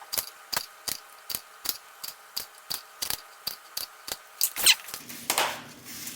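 Knife cutting the ends off asparagus spears, with sharp, evenly spaced chops of about three a second, each blade strike ticking on the board. About five seconds in there is a short scrape, like the trimmed pieces being pushed aside.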